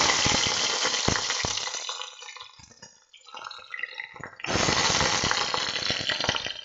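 Garlic cloves sizzling in hot oil in a stainless steel pot: a loud sizzle the moment they go in, fading over about three seconds, then swelling again about four and a half seconds in.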